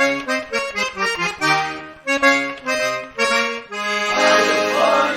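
Button accordion (gaita botoneira) playing gaúcho dance music: short, punchy chords and runs, then a chord held over a low bass note from about four seconds in.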